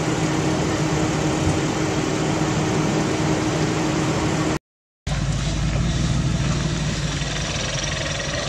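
A steady engine-like drone with broad noise and a low hum. It drops out completely for half a second about halfway through, then returns with a deeper rumble and a tone that slowly rises near the end.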